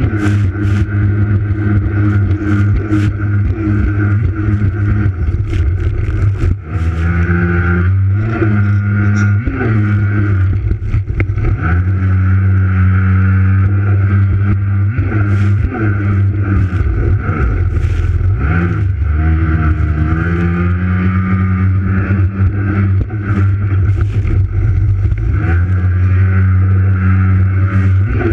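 Racing jet ski engine running hard at high revs, its pitch dropping and climbing again several times as the throttle is eased off and opened back up.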